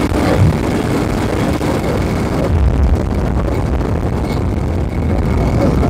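1972 Moto Guzzi Eldorado police motorcycle's V-twin engine, bored out to nearly 1000cc, running steadily.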